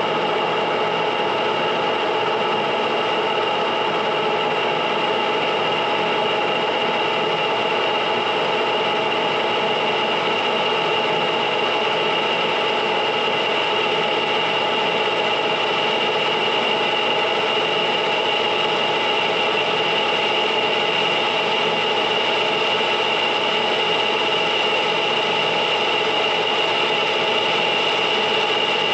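Lathe facing the end of a cast iron engine piston, turning at 210 RPM and taking a light pass of about 0.025 inch. The cut is a steady, continuous sound with a high ringing tone over it.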